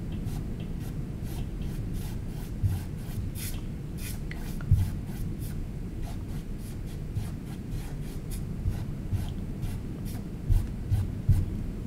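Paintbrush swishing across a stretched canvas in many short, quick strokes, brushing in rays of light, over a steady low rumble, with a few soft low thumps, the strongest near the middle and two more near the end.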